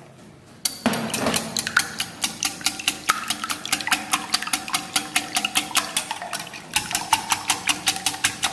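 Wire balloon whisk beating eggs with vanilla essence in a glass bowl: a fast, even clatter of the wires striking the bowl, about five strokes a second, starting suddenly about a second in.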